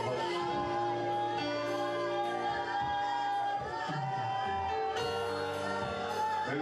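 A slow worship song: a voice singing over long held chords.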